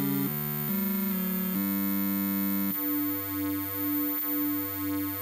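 Two-voice 8-bit computer music from an Apple II running Electric Duet, played out of the cassette port through an amplified Apple speaker. A run of changing notes gives way, about two and a half seconds in, to a held note that pulses about three times a second.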